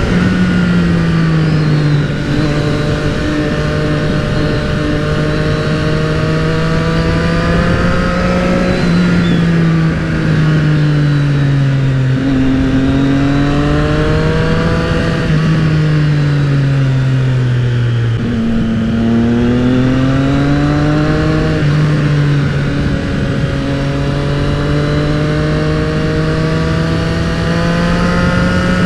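Triumph motorcycle engine under way, its pitch rising and dropping with throttle and gear changes, sliding down as the bike slows about two-thirds of the way through and climbing again after, with steady wind rush.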